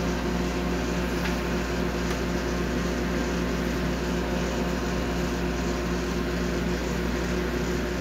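Philco microwave oven running with its cover off, a steady mains hum from its fan and transformer. It is running but not heating: the high-voltage fuse is open, so the magnetron gets no high voltage.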